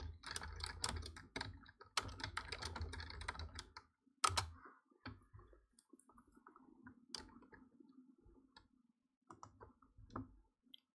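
Typing on a computer keyboard: a quick run of key clicks for about four seconds, a single louder key strike just after, then a few scattered clicks.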